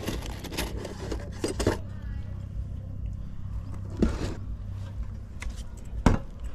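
Scattered metallic clinks and knocks from work on pressed-metal roof tiles, the sharpest knock about six seconds in, over a steady low hum.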